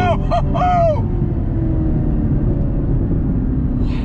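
Cabin sound of a Camaro ZL1 1LE's supercharged 6.2 L V8 with road noise, the engine note slowly sinking as the revs drop off. A man's long high whooping yell rings out over it in the first second.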